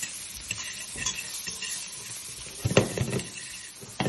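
Guanciale sizzling as it roasts in its own rendered fat in a stainless steel pan, stirred with metal tongs that knock and scrape against the pan several times, loudest about three seconds in.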